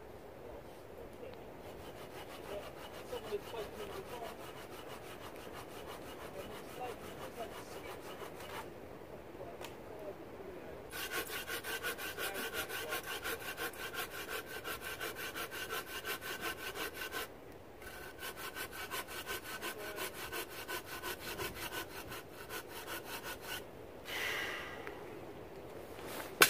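A small hand saw cutting through a birch log in quick, even strokes, louder in two long runs around the middle with a brief pause between them.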